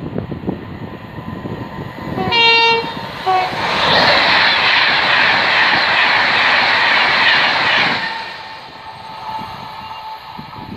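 Class 390 Pendolino electric express train sounding its horn: one note of about half a second, then a short second note. It then runs through at speed with a loud steady rush of wheel and air noise for about four seconds, which fades off.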